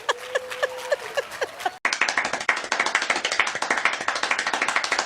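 A few short chirping notes, then an abrupt cut about two seconds in to a crowd applauding, a dense steady clatter of many hands clapping.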